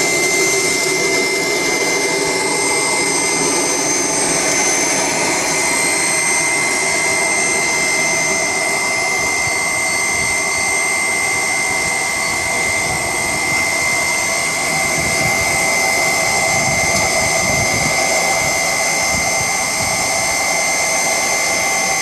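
Wood pellet furnace running: its electric air blower makes a steady rushing noise with a high whine held throughout.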